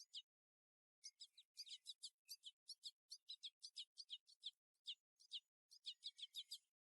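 Bird chirping: a quick run of short, high chirps, each sweeping downward, several a second, with a gap about a second in and dead silence between them.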